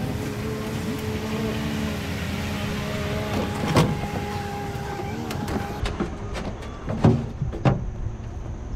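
Outboard motor idling, with a steady hum, and sharp knocks about four seconds in and twice near the end.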